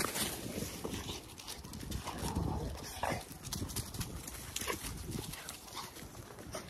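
Bully-breed dogs and a person running over dry grass and dirt: a quick, irregular patter of paws and footsteps scuffing the ground.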